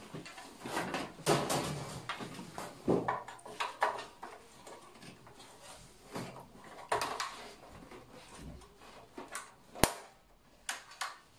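Hands fitting a new switch into an electric heater's metal housing: rustling and scattered small clicks and knocks, with a sharp click near the end.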